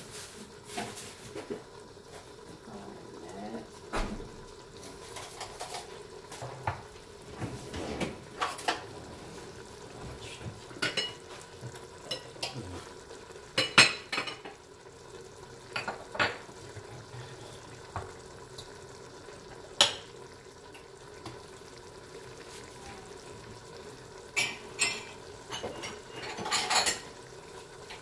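Metal utensils clinking and scraping against a cooking pot and dishes at irregular intervals, with sharper clinks about halfway and again near the end.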